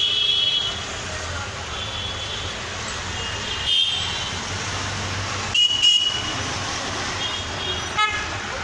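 Busy road traffic with short horn honks sounding again and again over a steady hum of engines, and a few sharp clicks.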